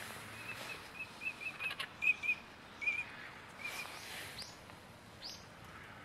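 Female Daurian redstart calling: a run of short, high notes, some doubled, over the first few seconds, then two thin notes falling in pitch near the end.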